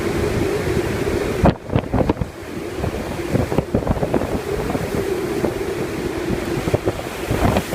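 Typhoon wind buffeting the microphone in heavy gusts over storm waves breaking against a seawall, with sharp wind blasts about one and a half seconds in and again near the end.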